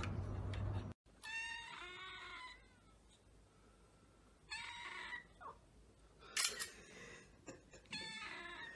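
Bengal kitten meowing: four drawn-out meows, the first the longest, with short pauses between.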